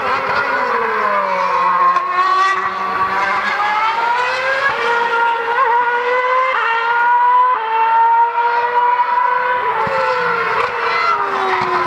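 2013 Formula One cars' 2.4-litre V8 engines at high revs. The pitch falls early as a car brakes and downshifts, then climbs in a series of steps as it accelerates up through the gears, and drops again near the end under braking.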